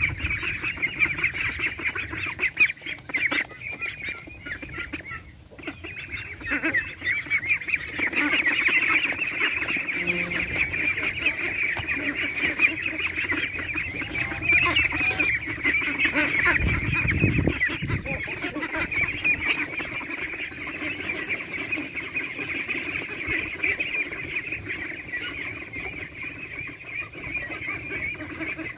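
A flock of farm poultry calling continuously in a dense, chattering chorus, louder from about eight seconds in, with a brief low rumble around seventeen seconds.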